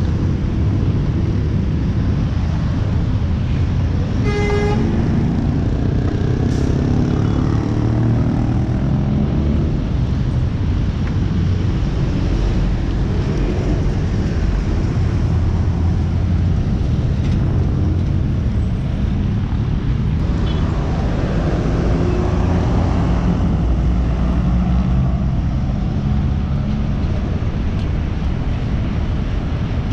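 City traffic: bus and car engines running and pulling away past the crossing, with a short car horn toot about four seconds in.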